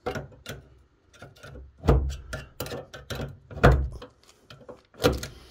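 A run of clicks and knocks from hands-on work on metal conduit and fittings, with three heavier thumps about two, three and a half, and five seconds in.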